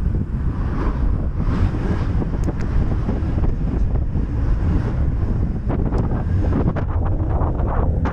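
Wind buffeting the microphone on a moving Yamaha Cygnus 125 scooter, a steady low roar with the single-cylinder scooter's running mixed underneath.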